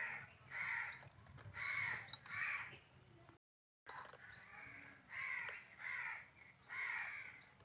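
A crow cawing repeatedly, about seven short caws in two runs with a brief break between them.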